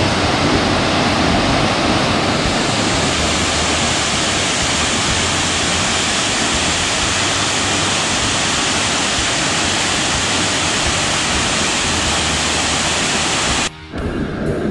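Loud, steady rush of a waterfall. It cuts off abruptly near the end.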